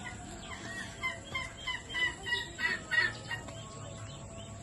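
A hen clucking: a quick run of about eight short, pitched clucks lasting about two and a half seconds.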